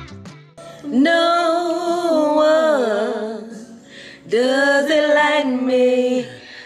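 Background music: a woman's voice singing two long phrases with vibrato, the first starting about a second in and the second a little past the middle, with little accompaniment beneath.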